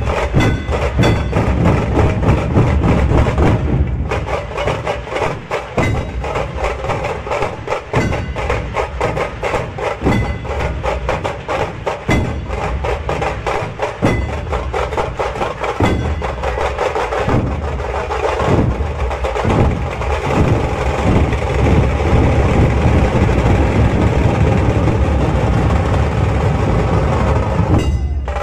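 Dhol drums and the metal jingles of lezims from a Maharashtrian lezim troupe, playing a loud, continuous folk rhythm of dense, sharp strokes over heavy drum beats.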